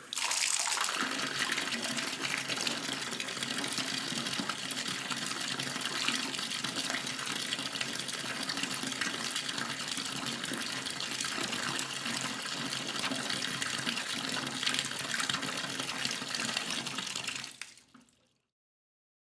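Bathtub faucet running, a steady stream of water splashing into the tub; it is turned off near the end and the flow tapers away to nothing.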